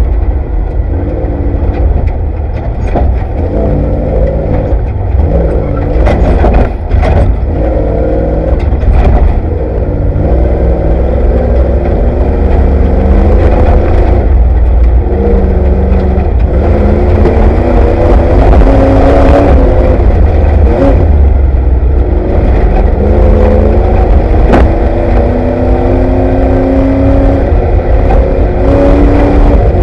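Off-road race vehicle's engine heard from inside the car, its pitch repeatedly climbing and dropping as it accelerates and lets off, over a heavy steady rumble. Occasional sharp knocks and clatter from the vehicle pounding over rough ground.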